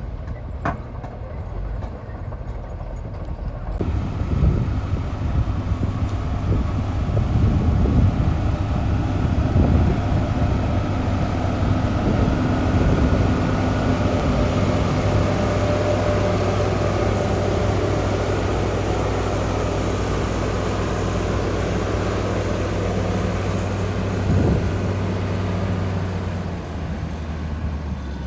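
Diesel engine of heavy earthmoving machinery running at a steady pitch. It gets louder about four seconds in, with rattly noise over the next several seconds, and it drops away near the end.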